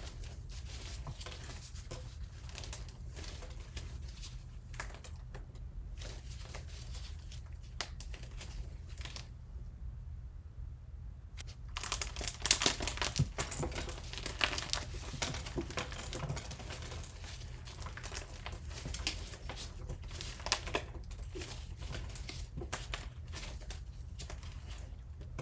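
Close, dense crinkling and crackling of handled material, with tearing sounds. It drops almost to quiet for a couple of seconds midway, then comes back louder and busier.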